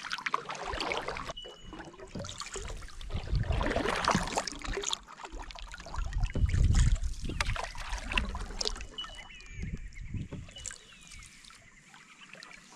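Wooden canoe paddle strokes in the water: the blade dipping, pulling and lifting out with splashes and drips, a stroke every two to three seconds.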